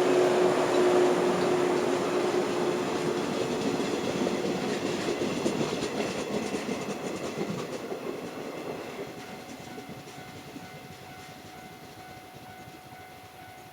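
Electric train running past on the rails and moving away, its sound fading steadily over about ten seconds. A steady hum is heard at the start and dies away within the first few seconds.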